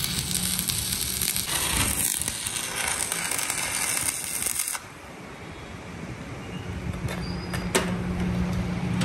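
Electric arc welding on a truck axle shaft and flange: a loud steady hiss of the arc that stops about five seconds in. After it a low steady hum rises, with a single sharp click near the end.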